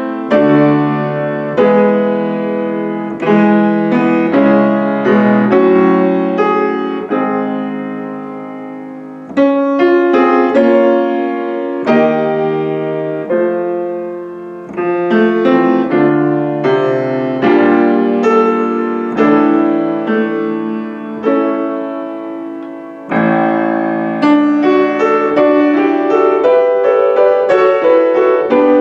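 Solo piano playing a slow, flowing piece, phrases of struck notes that fade away before the next phrase begins.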